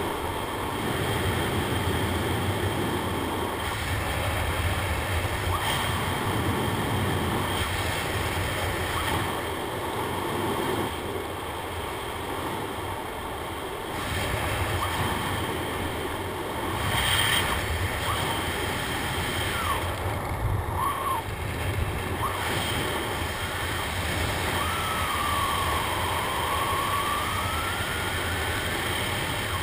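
Wind rushing over the camera's microphone during a descent under an open parachute canopy: a steady rush, briefly louder about 17 seconds in.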